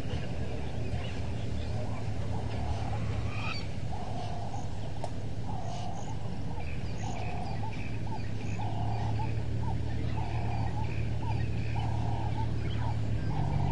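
A bird calls in short honks, repeated about once a second from a couple of seconds in. Under it runs the steady low hum of a safari vehicle's engine.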